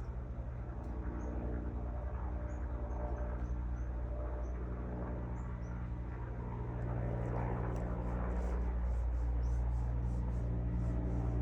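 Small birds chirping high and sharp: a few scattered chirps at first, then a rapid run of about three a second from about seven seconds in. These are alarm calls at a rat chasing them. Under them runs a steady low engine drone that swells in the second half and is the loudest sound.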